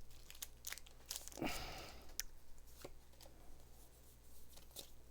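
Faint crinkling of a Pokémon booster pack's foil wrapper and rustling of trading cards being handled. There are scattered small clicks and rustles, and a longer crinkle about a second and a half in.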